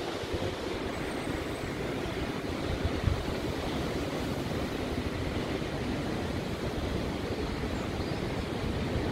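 Wind buffeting a phone microphone, with a steady wash of sea surf behind it.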